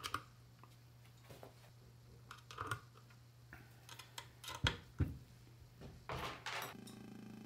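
Eurorack patch cables being plugged into module jacks: scattered faint clicks and small knocks over a faint steady low hum. Near the end a steady low synth tone with overtones comes in.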